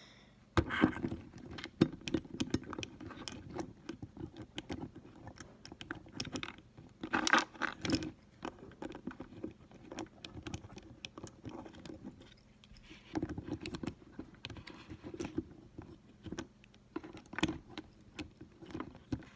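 Irregular small clicks, taps and rattles of an HO-scale Athearn model locomotive's motor and metal chassis parts being handled and fitted together, including the touches of a small screwdriver. A few louder clatters stand out, the loudest about seven to eight seconds in.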